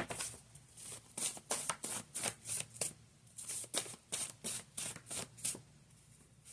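A deck of tarot cards being shuffled by hand: a run of short swishing strokes, about three a second, that stops about five and a half seconds in.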